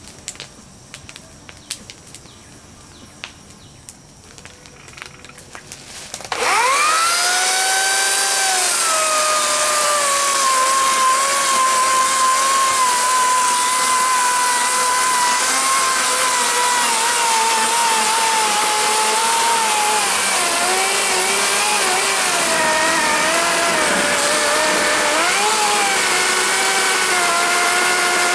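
A few light knocks and rustles, then about six seconds in an electric chainsaw starts with a sudden high whine and runs steadily at full speed, held against a thick fallen tree limb. In the last third its pitch dips and wavers as the chain bites into the wood.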